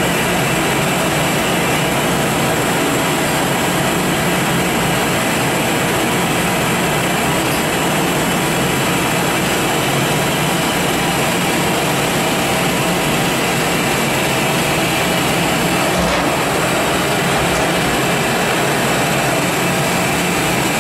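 Giddings & Lewis 84 CNC vertical turning lathe running: a loud, steady mechanical hum and hiss with faint steady tones, unbroken throughout.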